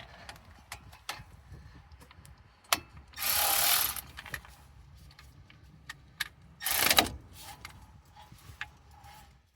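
Hand tools clicking and ratcheting on a car's brake assembly in scattered metallic clicks. Two short hissing bursts stand out: a louder one of about a second, about three seconds in, and a briefer one a few seconds later.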